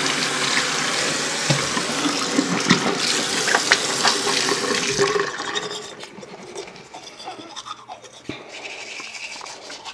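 Bathroom tap water running steadily into a sink while a toothbrush is wetted under the stream. The water stops about five and a half seconds in, leaving the quieter scrubbing of a toothbrush on teeth.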